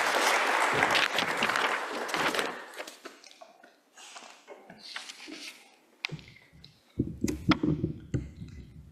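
Audience applause dying away over the first three seconds, then a lull. Near the end come a few sharp knocks and bumps from the podium microphone being handled.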